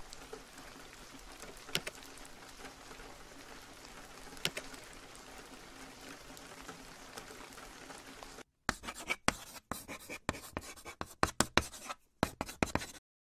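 Faint, steady rain ambience with a couple of small clicks, then for the last four seconds a fast run of scratchy scribbling strokes, a drawing sound effect, that stops abruptly.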